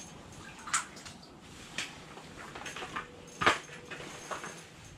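Irregular sharp clicks and knocks, the loudest about three and a half seconds in, over a faint steady hiss: ice-fishing rod and reel being handled while a hooked fish is played.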